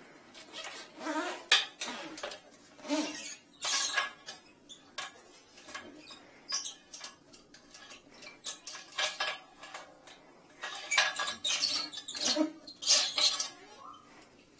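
Irregular clicks, light knocks and small squeaks from handling a drain inspection camera's push cable as it is fed by hand into a toilet drain.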